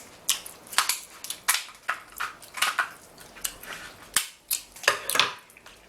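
King crab leg shells being cracked and snapped open by hand: a string of sharp, irregular cracks and crunches.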